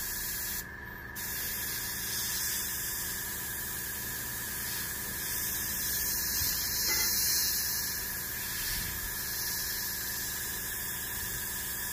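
Gravity-feed airbrush spraying paint, a steady hiss of air with a brief drop about a second in, as a coat is built up slowly in light passes. A steady faint whine runs underneath.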